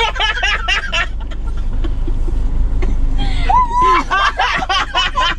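Several people laughing and squealing inside a car, with the cabin's low rumble heard clearly in a lull in the middle before the laughter starts up again.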